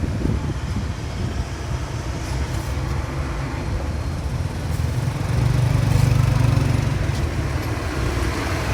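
Excavator's diesel engine running with a steady low rumble, growing louder for a couple of seconds around the middle before easing back.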